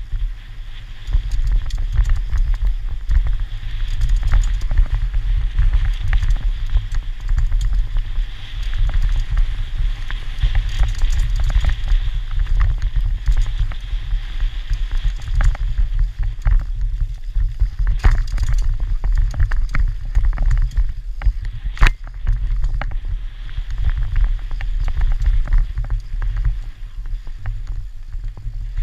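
Wind buffeting the microphone of a helmet-mounted camera on a mountain bike descending a rough dirt trail, with tyre noise and the rattles and knocks of the bike over bumps; one sharp knock about three quarters of the way through.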